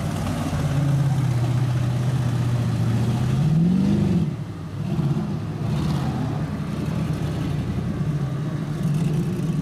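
Pickup truck engine held at high revs as its wheels spin in mud, holding one steady note, then rising in pitch about three and a half seconds in and dropping off suddenly. The engine then runs on unevenly at varying revs.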